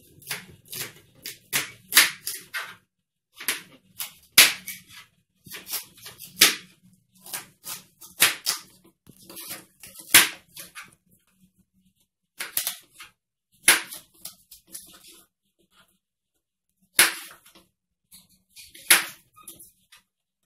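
Kitchen knife cutting carrot into strips on a plastic cutting board. The blade knocks sharply and unevenly against the board in clusters, with short pauses between them.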